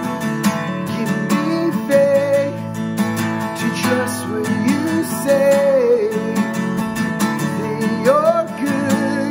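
Takamine acoustic guitar strummed steadily while a man sings long, held notes over it in a worship song.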